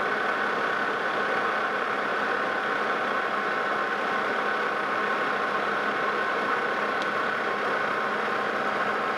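Metal lathe running steadily with a constant whine while taking a threading pass, the single-point tool cutting a right-hand Acme thread on a long shaft.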